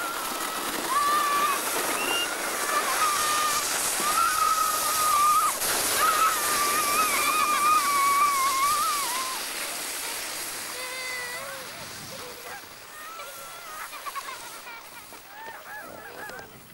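Children riding a sled down a snowy hill, squealing in long, held, wavering cries. The cries grow fainter and shorter over the second half, under a steady hiss.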